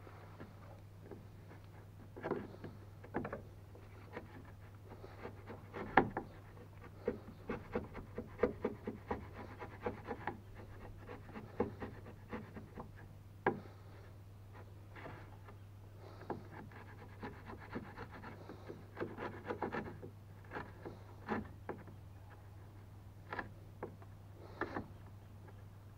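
Hand-held wood chisel pushed by hand, paring and scraping out a notch in a wooden stringer in short, irregular strokes, with now and then a sharper crack as a chip breaks away. A steady low hum runs underneath.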